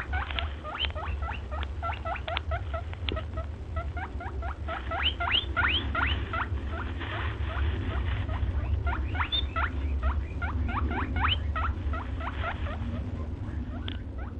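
Rapid, high, upward-sliding squeaks from a small animal, several a second, over a steady low hum.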